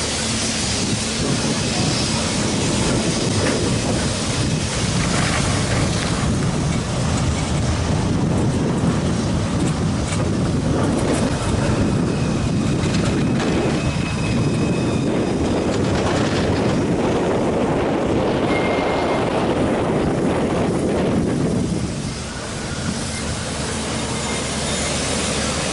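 Articulated STAS tram passing close on street track: a steady rumble of wheels and motors that swells as it goes by and drops off about 22 seconds in. A few faint high wheel squeals can be heard as it takes the curve.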